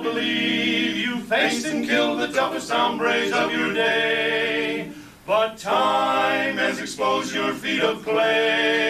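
Male barbershop quartet singing a cappella in close harmony, holding long sustained chords, with a short break about five seconds in.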